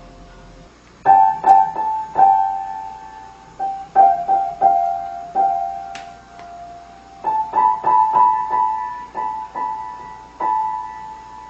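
Piano notes struck singly or two at a time at an uneven pace, each ringing briefly, mostly in the middle-upper range, starting about a second in.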